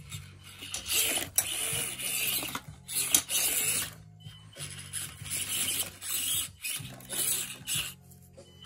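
Electric motor and gearbox of a scale RC rock crawler whirring in several bursts of throttle as it climbs over rocks.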